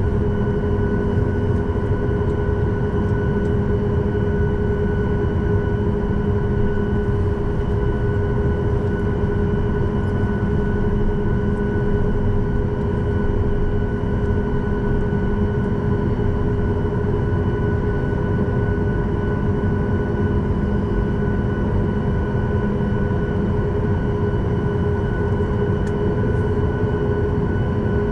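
Cabin noise inside a Boeing 737 MAX 8 taxiing: the CFM LEAP-1B engines running at low taxi power with a steady whine over a low rumble, with no change in power.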